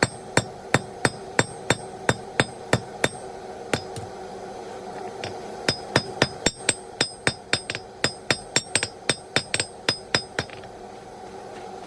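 Hand hammer striking hot steel bar stock on an anvil to draw out a tapered point, in a steady rhythm of about three ringing blows a second. The blows pause for a moment near the middle and stop shortly before the end, over a steady low hum.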